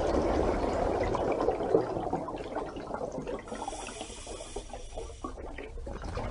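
Steady noise of running water, quieter in the second half.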